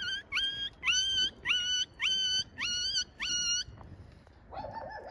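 A run of seven short, high-pitched squeaky animal calls, about two a second, each sliding up and then holding its pitch. A lower, wavering call follows near the end.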